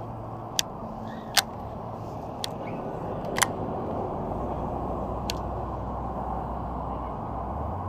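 Steady rush of highway traffic, with a few sharp clicks scattered through the first five seconds and a low rumble coming in about four seconds in.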